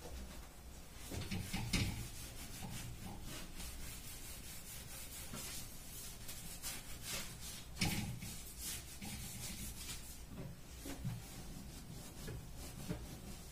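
Wiping and scrubbing inside a kitchen cabinet by hand: a run of short rubbing strokes against the cabinet surface, with two louder knocks, one about two seconds in and one a little past the middle.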